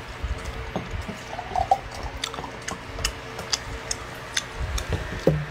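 Irregular small clicks and ticks, several a second, over a low rumble.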